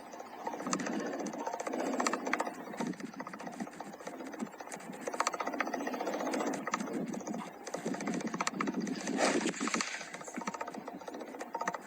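Thunderstorm rain: a rushing noise full of sharp ticks, as of drops striking a hard surface, swelling and easing every few seconds.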